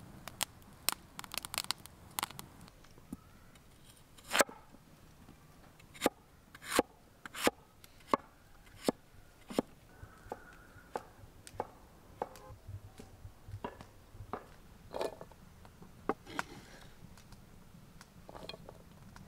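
Knife chopping vegetables on a cutting board: a string of sharp knocks at an uneven pace, roughly one a second, with a quick run of lighter crackles near the start.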